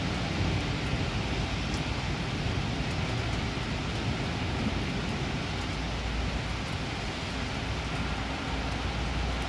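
Heavy rain falling steadily during a thunderstorm, with a low rumble of distant thunder building from about six seconds in.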